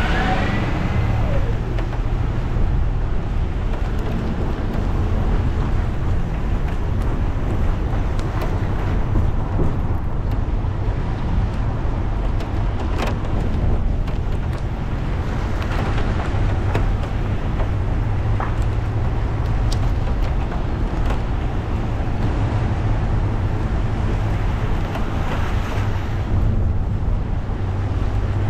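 A car driving on a wet road in the rain: steady low engine and road rumble under the hiss of tyres on water, with a few sharp ticks. A siren's wail glides and fades in the first second or so.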